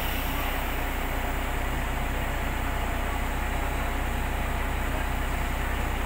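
Engine of a heavy lifting machine running steadily while it hoists a container van on cables, a constant low hum with no change in pitch.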